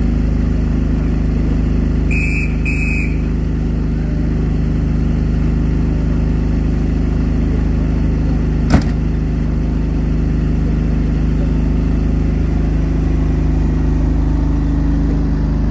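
Class 45 diesel locomotive's Sulzer twelve-cylinder engine running with a steady low drone. A guard's whistle gives two short blasts about two seconds in, and a single sharp knock sounds about nine seconds in.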